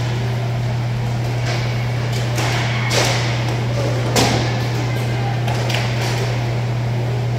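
Inline hockey play: sharp knocks and clacks of sticks and the plastic puck, the two loudest about three and four seconds in, over a steady low hum.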